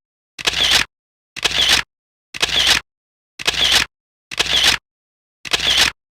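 Camera shutter sound effect repeated six times, about once a second, each shot about half a second long and identical to the others, with dead silence between.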